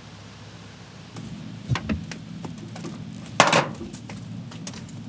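Scattered small knocks, scuffs and rustles of a person moving and crawling through dirt and debris under a deck, with one louder rustle about three and a half seconds in.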